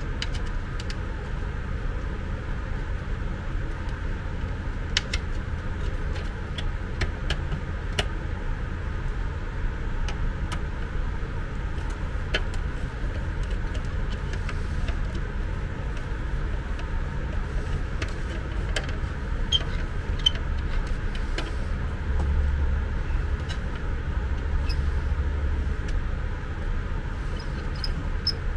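Small scattered clicks and taps of a screwdriver, screws and the plastic housing of a portable suction aspirator being worked on by hand, over a steady low rumble that swells for a few seconds near the end.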